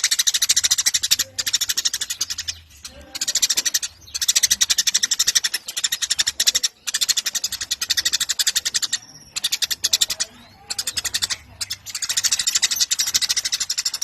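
Eurasian tree sparrows chattering: fast, continuous high-pitched chirps in runs of a couple of seconds broken by short pauses.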